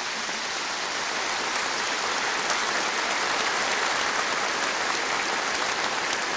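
Large audience applauding: a dense, steady mass of many people clapping.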